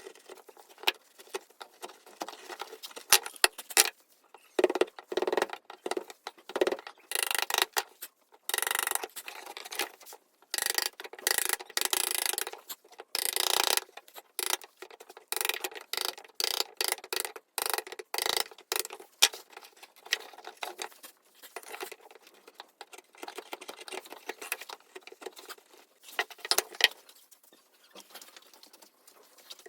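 Hand work at a workbench: irregular clicks and taps of wood and tools being handled, with a few spells of quick scratchy scraping or rubbing.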